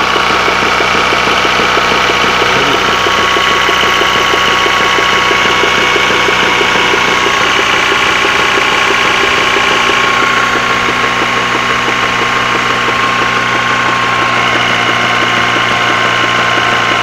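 Honda F22B1 four-cylinder engine idling steadily with a fast, even knock running through it. The owner takes it for the rear balance shaft, with play in it as the likely cause.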